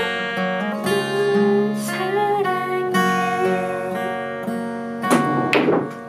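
Cutaway acoustic guitar strummed, its chords ringing on as the closing chords of a song, with two harder strums about five seconds in.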